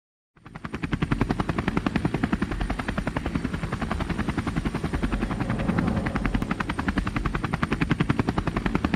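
Propeller aircraft engine sound effect: a rapid, even pulsing drone that fades in just after the start and holds steady.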